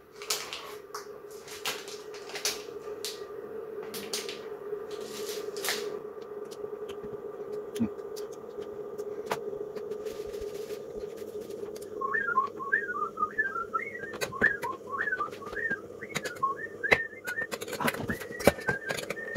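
Crinkling of foil and paper wrappers as chocolate is unwrapped, then, about twelve seconds in, a person whistling a tune. A few sharp clicks of a spoon against a steel saucepan come near the end, over a steady low hum.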